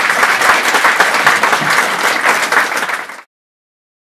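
Audience applauding in an auditorium, a dense steady clapping that cuts off suddenly about three seconds in.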